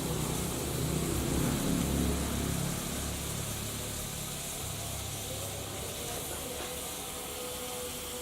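Red-hot steel ball sizzling and boiling in cough syrup: a steady hiss with a low rumble, louder in the first three seconds and then settling.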